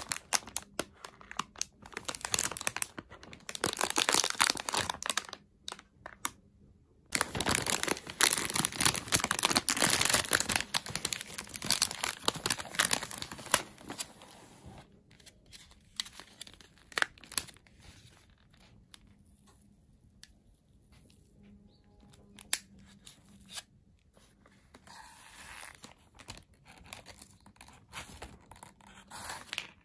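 Thin plastic wrapper of a packaged roll cake crinkling and tearing open as it is unwrapped. The sound is loudest in two stretches in the first half, with quieter, scattered crinkles and clicks after that.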